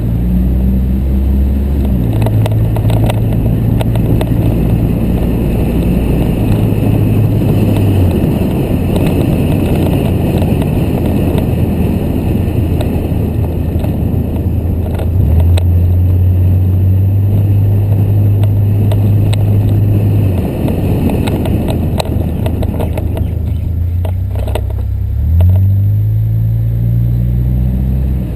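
A car being driven, with engine and road noise. The engine note holds steady for stretches and climbs in pitch near the start and again near the end.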